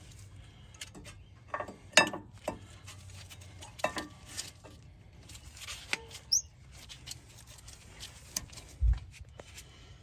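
Irregular clicks, clinks and knocks of tools and metal brake parts being handled during a rear brake pad job, with a brief squeak about six seconds in and a dull thump near the end.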